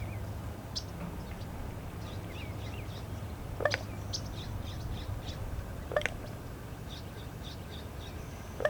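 Common raven making its popping call: single sharp, hollow pops about every two to three seconds, three in all. The uploader takes it for a territorial call.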